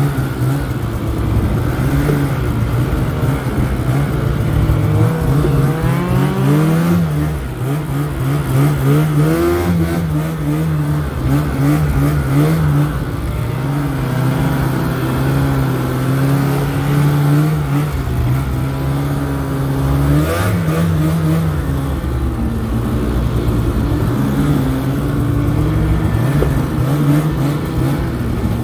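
Snowmobile engine running as the sled rides along, its pitch rising and falling with the throttle; it climbs clearly about six seconds in and again around twenty seconds.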